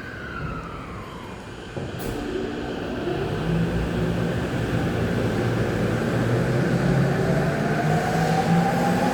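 A train's doors knock shut about two seconds in. Then the E231 series electric train pulls away: its inverter and traction motors hum in several tones that slowly rise in pitch and grow louder as it picks up speed.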